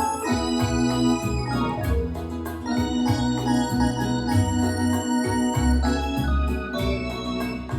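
Yamaha DX7 FM synthesizer playing a keyboard passage in an organ-like tone: held chords over a changing bass line.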